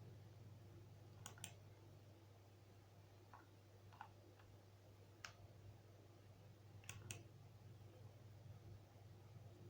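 A few faint, short clicks at irregular intervals, two of them in quick pairs, over a low steady hum in near silence.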